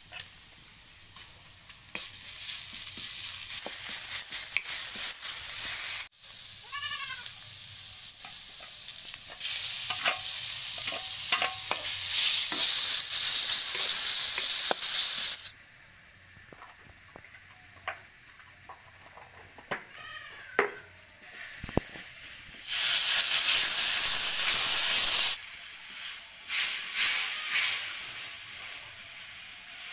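Onion and garlic sizzling in hot oil in a metal kadai while being stirred with a wooden spatula; the sizzle swells loud in three long stretches as the pan is worked. A goat bleats a few times in the background.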